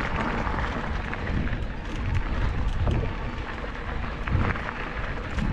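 Mountain bike riding a dirt trail: a steady noisy rush of tyres on the ground and a low rumble, with frequent small clicks and rattles from the bike.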